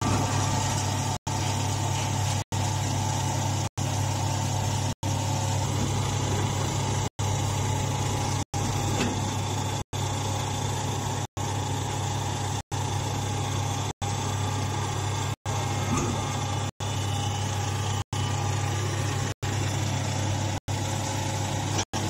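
Hydraulic hay baler's power unit (motor, pump and oil-cooler fan) running steadily with a low hum. The sound cuts out for a split second about every second and a quarter.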